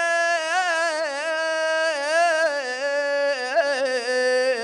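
A man's voice wailing a sung mourning lament, held on long notes with wavering, ornamented turns and slowly sinking in pitch toward the end.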